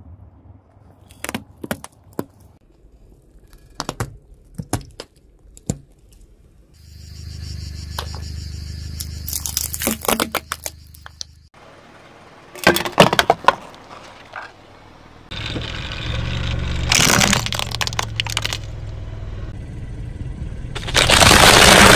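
Objects crushed under a slowly rolling car tyre on asphalt: scattered sharp cracks and crunches, with stretches of steady low noise between them. Near the end a plastic soda bottle bursts under the wheel and sprays with a loud hiss.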